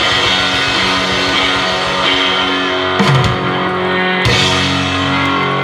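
Rock band playing: electric guitar and drum kit, with drum hits about three seconds in and again about a second later.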